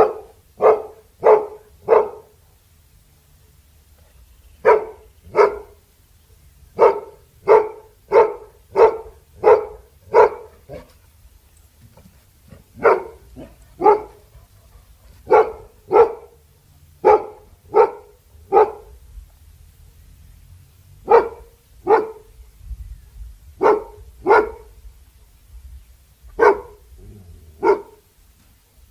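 Labrador barking: single deep barks about two-thirds of a second apart, in runs of two to seven with pauses of about two seconds between runs.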